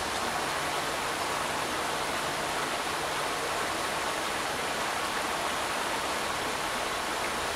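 Steady, even rushing noise of running water.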